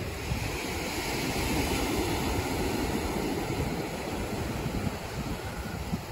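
Waves breaking and washing up the beach in a steady rush of surf, with wind buffeting the microphone.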